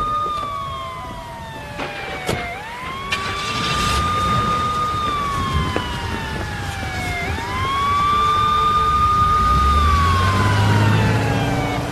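Emergency vehicle siren wailing. Each cycle sweeps up quickly, holds its high note, then slides slowly down, about every four and a half seconds. There are a couple of sharp clicks in the first few seconds, and a low rumble swells beneath the siren near the end.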